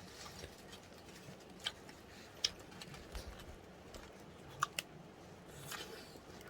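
Mostly quiet, with a low steady hiss and a handful of faint, sharp clicks and ticks at irregular moments, two of them close together just before five seconds in.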